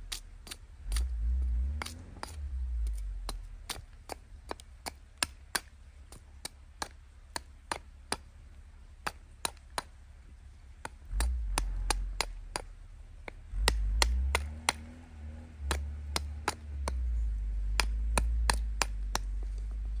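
A large knife chopping down into an upright stick of firewood to split kindling: a run of sharp knocks, roughly two a second and irregular, with a low rumble coming and going underneath.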